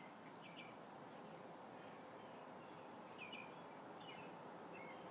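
Near silence: faint steady background hiss with a few faint, short, high chirps scattered through it.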